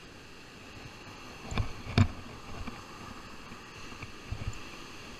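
Surf breaking on a sand beach, with wind on the microphone. Two sharp knocks come about one and a half and two seconds in, and two fainter ones near the end.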